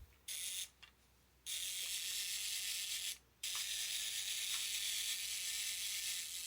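Mechanical self-timer escapement of a Lubitel 166U twin-lens reflex camera running with a steady, high-pitched whirring buzz. A short whir comes first, then the buzz starts about a second and a half in, breaks off briefly just after three seconds and resumes.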